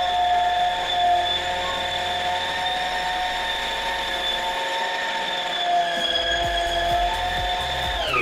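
Preethi Zodiac mixer grinder's motor running under load with its food-processor attachment, kneading chapathi dough from flour, water and oil. It gives a steady whine, and right at the end it is switched off and winds down, falling in pitch.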